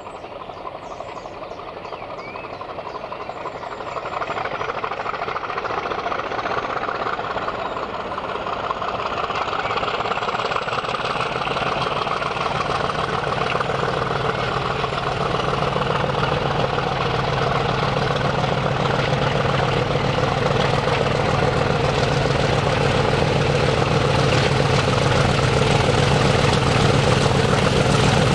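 Class 50 diesel-electric locomotive with an English Electric 16-cylinder engine approaching under power, working hard and growing steadily louder as it nears, with a deep steady drone coming in about halfway through.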